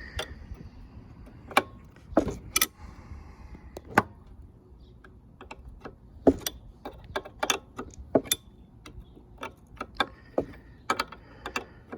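A 5/8 wrench working at a stuck fitting on a pressure-washer pump: irregular sharp metallic clicks and knocks, coming a few a second in places.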